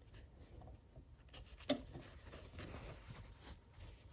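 Faint rustling of cotton quilt fabric being handled as curved pieces are matched up and pinned, with one brief, sharper sound a little under two seconds in.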